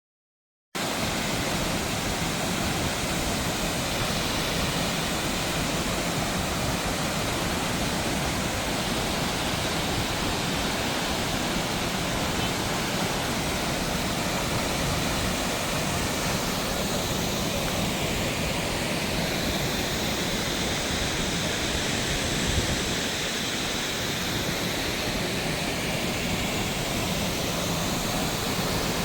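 Multnomah Falls, a tall plunging waterfall: a steady, unbroken rush of falling water, starting abruptly under a second in.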